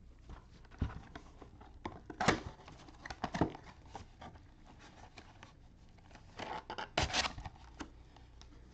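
Cardboard trading-card box being handled and opened by gloved hands: scattered scrapes, rustles and short tearing noises, loudest a little over two seconds in and again around seven seconds.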